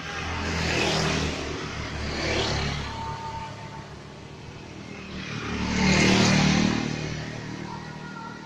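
Two motor vehicles passing by on a road, each swelling up and fading away over a few seconds. The first peaks about a second in and the second, louder one peaks about six seconds in.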